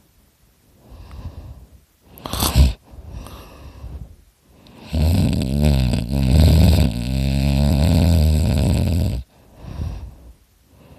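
A person snoring very loudly with the mouth open: a short sharp intake about two seconds in, then one long, loud snore of about four seconds from about halfway through, followed by a softer breath.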